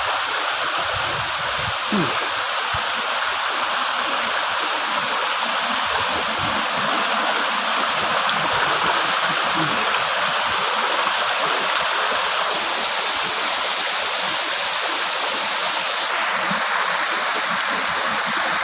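Waterfall and stream water rushing steadily over rocks, an even hiss with a few faint knocks underneath.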